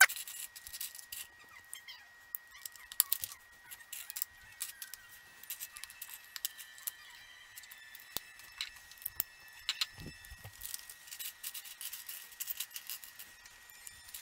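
LEGO plastic pieces clicking and rattling as they are handled and pressed together: a steady string of irregular light clicks, with a sharper click right at the start.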